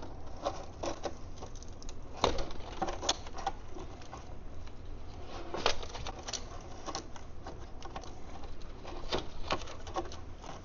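New engine oil glugging out of a plastic quart bottle into the filler neck of a BMW N55 inline-six, with the bottle nearly empty. Irregular small clicks and taps, a few louder ones about two seconds in and just before six seconds.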